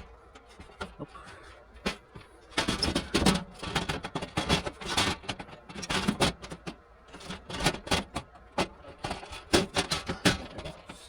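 Sheet-metal air handler access door being handled and worked into place, with irregular knocks, clicks and scraping rattles of metal on metal.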